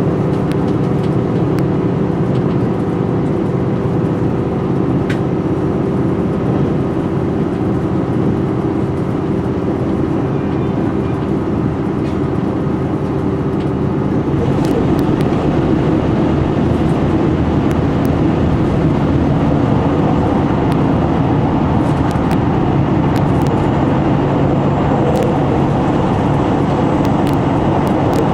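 Cabin noise of a KiHa 261 series diesel railcar running at speed: steady diesel engine drone under wheel and rail rumble. About halfway through the noise grows louder and rougher as the train enters a tunnel.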